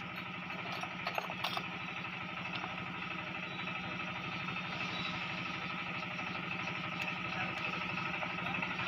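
A motor running steadily with an even, fast beat, and a few light clicks about a second in.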